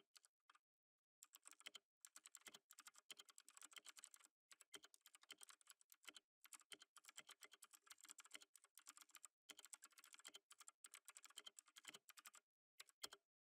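Quiet typing on a computer keyboard: rapid keystrokes in runs broken by short pauses, stopping a second before the end with a last few taps.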